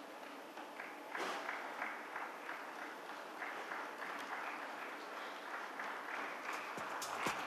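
Audience applauding, the clapping swelling about a second in and carrying on through, with music with a beat starting near the end.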